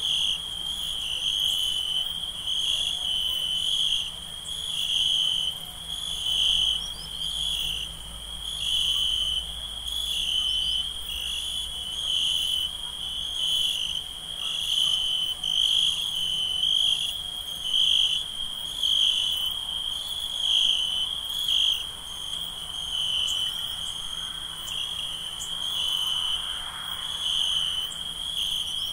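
Crickets chirping at night in a continuous high trill that pulses slightly.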